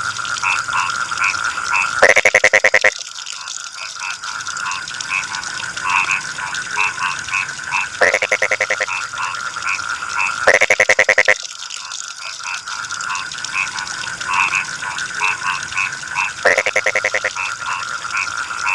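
Frogs calling at night: one frog gives a loud rapid pulsed croak, just under a second long, four times, over a chorus of short chirping calls and a steady high trill. A steady hiss of running water from a spout lies beneath.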